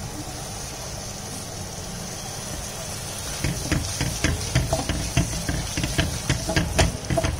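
Tomato-onion masala sizzling in a kadai with freshly added chopped beans and potato. From about three and a half seconds a wooden spatula stirs the vegetables, with quick light scrapes and taps against the pan over the sizzle.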